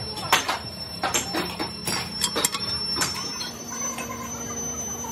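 Hand work on a sand-casting mould: a quick run of sharp taps and knocks as a bag of parting powder is patted over the metal pattern plate in a steel moulding flask, then softer sounds of moulding sand being heaped into the flask from about three seconds in, over a steady background hum.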